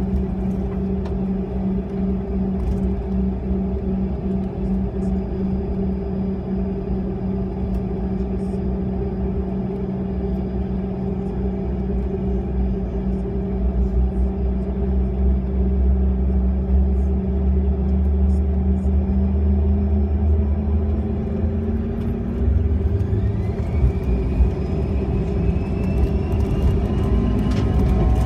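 Bombardier CRJ-200's rear-mounted GE CF34 turbofans heard from inside the cabin during taxi: a steady engine hum over a low rumble. About twenty seconds in the hum rises and a higher whine climbs as the engines spool up, the thrust coming up for the takeoff run.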